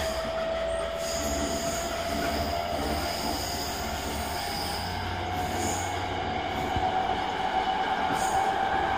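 Running sound of a JR East E217-series electric train, motor car MoHa E217-31: the traction motors' whine rises slowly in pitch as the train gathers speed, over a steady wheel-on-rail rumble.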